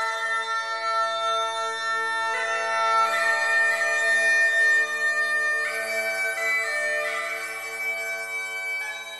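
Uilleann pipes playing a slow melody of long held notes over steady drones, fading out near the end.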